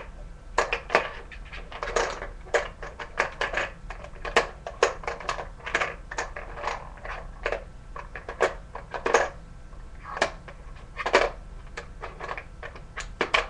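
Trading cards being handled and sorted on a table: a run of irregular clicks, taps and rustles.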